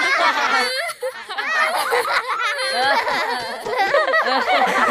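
Cartoon children's voices laughing, several at once, giggling and chuckling, with a brief pause about a second in.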